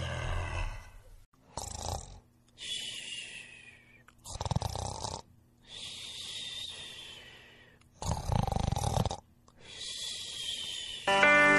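A recorded sound effect of a person's laboured, rasping breathing: three harsh gasps, each followed by a long wheezing breath, the sound of someone struggling for air. A faint steady hum runs underneath.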